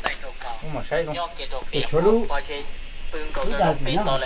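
Steady high-pitched insect drone, with people talking over it.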